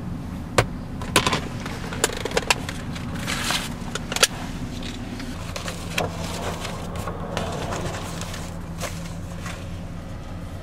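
Papers and a card folder being handled inside a Chevrolet pickup's cab: several sharp taps and clicks and a rustle of paper in the first few seconds. Under it runs the steady low hum of the truck's engine idling.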